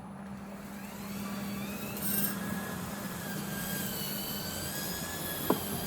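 String trimmer (weed eater) running, its whine rising as it speeds up about a second in and then holding steady. A single sharp tick near the end.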